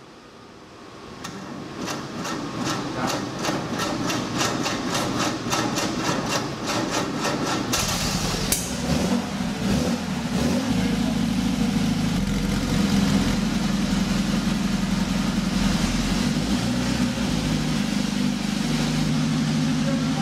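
Porsche 550 Spyder's air-cooled flat-four engine being started. A quick even ticking runs for several seconds, then the engine catches about eight seconds in and settles into a steady idle.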